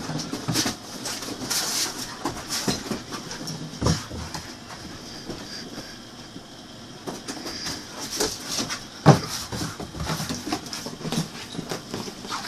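A dog romping on a bare mattress: irregular thumps and the scrabbling and scratching of its paws on the quilted fabric, with one louder thump past the middle.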